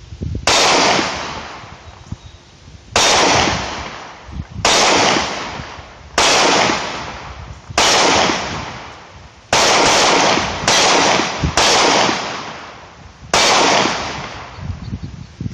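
Glock 30SF .45 ACP pistol being fired, about nine or ten single shots a second or two apart, one pair close together about two-thirds of the way through. Each sharp crack is followed by a ringing echo that dies away.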